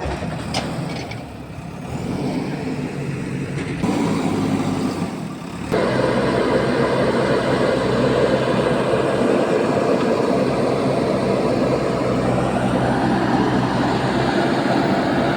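Diesel engine of a JCB backhoe/excavator running as it works, revving up to a louder, heavier level about four seconds in and again around six seconds, then holding steady under load.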